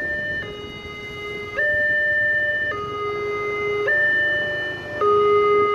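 Railway level crossing's electronic warning alarm sounding while the barriers are down: a steady high-low two-tone alternation, each tone about a second long. It gets louder about a second and a half in.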